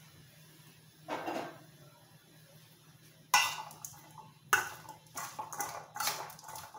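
Bowl of chopped vegetable filling being stirred: a utensil scrapes and clatters against the bowl, once briefly about a second in, then in a run of short uneven bursts through the second half.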